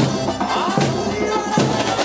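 Carnival comparsa music: a marching drum section beating a steady samba-style rhythm, with a melody carried over it.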